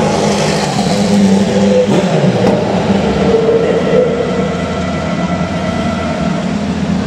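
Racing-circuit engine noise: a steady mechanical drone, with a car going by about two seconds in, its pitch falling as it passes.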